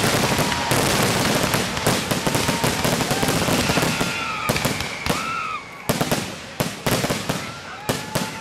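Aerial fireworks display: a dense barrage of overlapping bangs and crackle for about the first five seconds, thinning to separate sharp bangs near the end.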